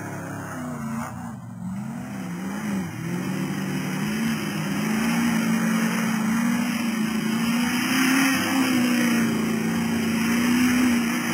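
Competition safari Land Rover 4x4 engine running under hard throttle, its pitch wavering up and down as the driver works the throttle, growing louder over the first half as the truck comes closer.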